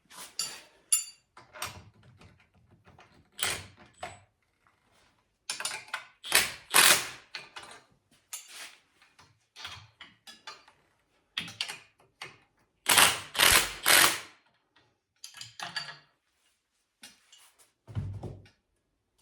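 Irregular clunks, clicks and knocks of a bench chain grinder being handled and fastened down onto its metal stand, with a cluster of loud knocks about two-thirds of the way through and a low thump near the end.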